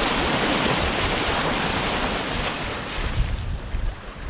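Seawater rushing and splashing as a cooking pan is held in the sea alongside the moving sailboat to wash it out. The rush swells at the start and eases off after about three seconds.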